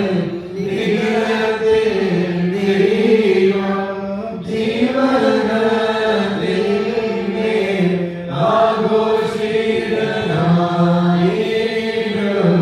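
Malankara Orthodox liturgical chant, sung in a slow melody of long, sustained notes that rise and fall without a break.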